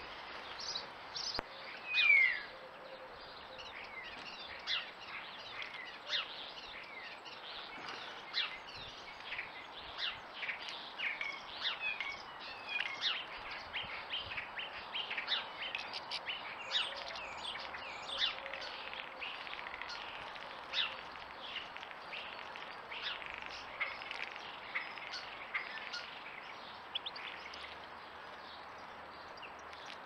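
Small songbirds chirping and calling in a busy run of short, high chirps, with one louder falling call about two seconds in, over a faint steady background hiss.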